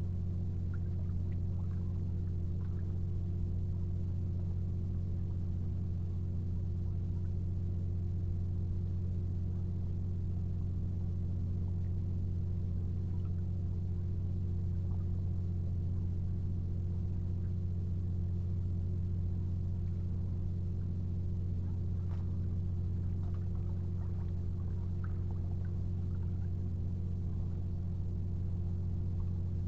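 A steady low droning hum that does not change, with faint scattered small clicks over it.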